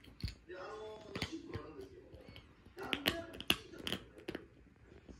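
Plastic bottle cap clicking and tapping as a Pomeranian paws and bites at it on a sofa, in quick irregular clicks, with short pitched vocal sounds about a second in and again around three seconds in.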